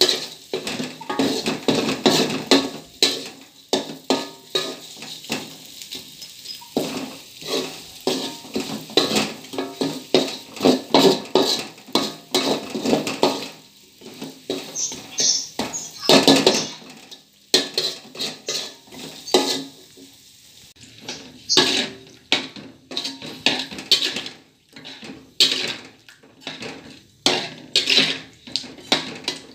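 Metal spatula scraping and knocking irregularly against an aluminium wok while a spice paste is stir-fried, with sizzling under it and a brief louder rush of noise about halfway through.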